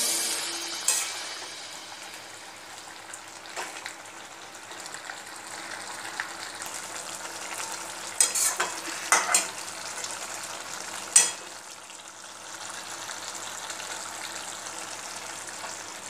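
Chicken curry sizzling in a steel wok with a steady hiss, while a metal spatula scrapes and clinks against the pan a handful of times, the loudest clink about eleven seconds in.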